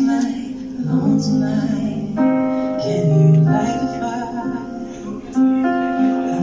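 Live pop duet: a woman and a man take turns singing a slow ballad over electric guitar and keyboard accompaniment.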